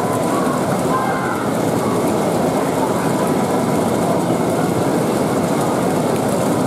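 Steady background din, even and unbroken, with faint voices mixed in.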